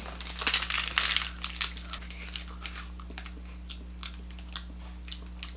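Shiny plastic wafer wrapper being torn open and crinkled, a dense crackle in the first second and a half, then scattered crinkles and ticks as the wafer is pulled out.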